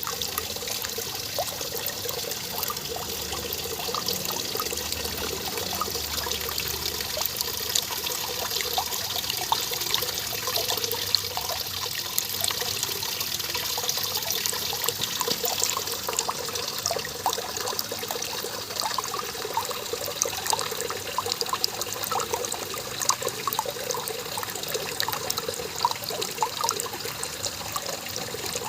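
Small garden waterfall: water splashing and trickling steadily into a pool, with many small drops and plinks over a constant rush.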